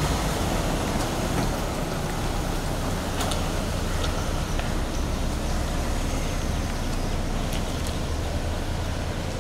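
Land Rover Defender SUV's engine running steadily as the vehicle pulls away at low speed, with a few faint sharp clicks scattered through.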